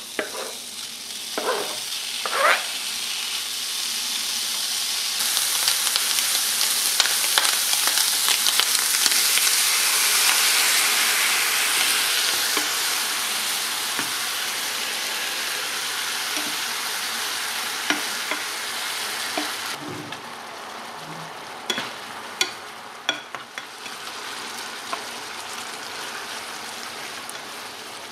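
Chopped bacon sizzling in a dry non-stick frying pan, fried in its own fat without oil and later with cream, while a spatula stirs it. The sizzle builds over the first few seconds and eases off about two-thirds of the way through, with sharp clicks of the spatula against the pan.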